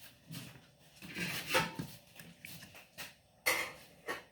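Small clicks and scrapes of a loose buzzer being worked free of a microwave's control circuit board. There are several short, sharp taps, the strongest about a second and a half in and again near the end.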